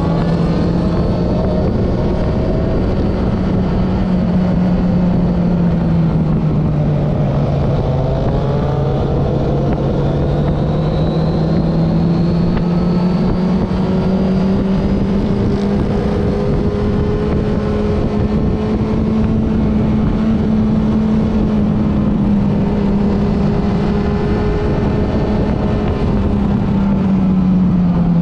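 Honda CBR900RR inline-four motorcycle engine pulling at a steady high pace, with wind and road noise over it. Its pitch dips a little about seven seconds in, climbs slowly for the next ten seconds or so, and eases off again near the end.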